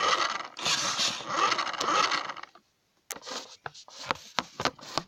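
Small electric motor and gears of a remote-control Brum toy car whirring for about two and a half seconds, then stopping abruptly. A run of sharp plastic clicks and knocks follows.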